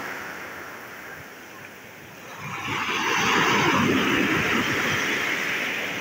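Sea waves washing up a shore. The hiss of receding foam dies away, then about two and a half seconds in a new wave breaks and rushes in with a loud hiss of foam.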